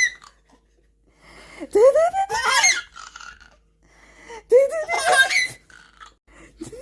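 A three- to four-month-old baby laughing in two squealing bursts, the pitch sliding upward in each, with a short quiet gap between them.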